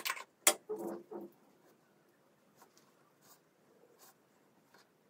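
A few sharp clicks and knocks in the first second, then faint, soft rubbing sounds every second or so as hands massage face cream into the skin.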